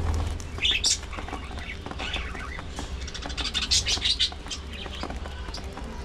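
Budgerigars pecking and cracking seed, a run of small rapid clicks, with short bursts of high chirping about a second in and again around three to four seconds in.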